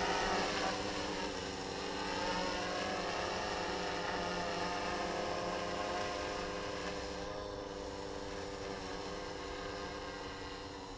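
Flip Sport quadcopter's brushless motors and propellers whining as it hovers low. The pitch wavers up and down in the first couple of seconds as it corrects, then holds steadier and grows slowly fainter as it moves off.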